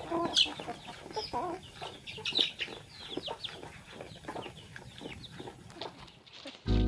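A flock of hens and young chicks calling: a rapid scatter of high, falling peeps from the chicks over softer clucking from the hens.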